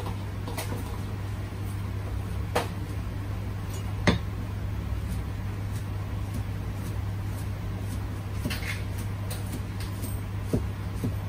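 A handful of scattered knocks and clatters of kitchenware being handled, the sharpest about four seconds in, over a steady low hum.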